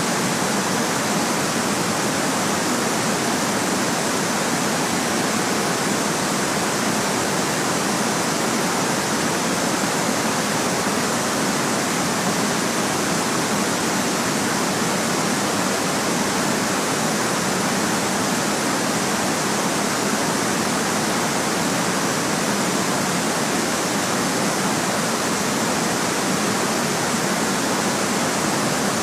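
Steady white noise: an even, unchanging hiss across the whole range from low to high, with little deep bass.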